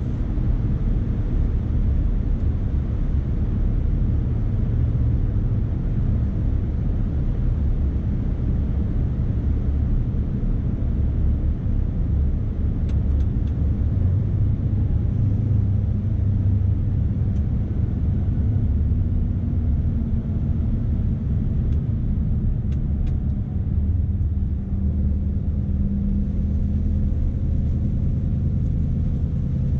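Scania S520 truck's V8 diesel engine running steadily under way while hauling a heavy load, a deep low rumble with a slight change in engine note in the second half.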